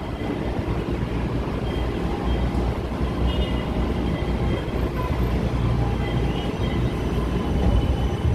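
MRT-3 Dalian light rail train starting to pull out of the station: a steady low rumble of wheels and running gear, with a few faint high whines, growing a little louder toward the end.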